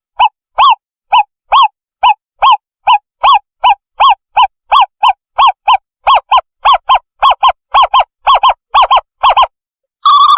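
Owl call played as a bird-trapping lure: a long series of short hooting notes, about two a second, that come faster and in pairs toward the end, then a rapid bubbling trill that starts just before the end.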